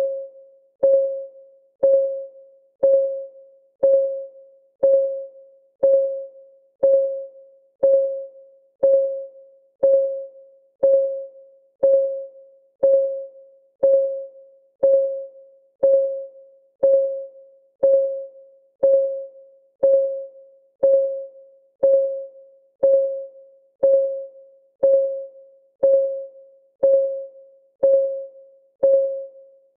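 Clock-ticking sound effect of a countdown timer, one tick a second, steady and even. Each tick is a sharp click with a short pitched ring that dies away.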